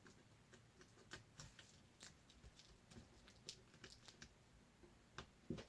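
Faint, scattered light clicks and taps from small parts of an Acer C720 Chromebook being handled during repair, with the loudest pair of clicks near the end.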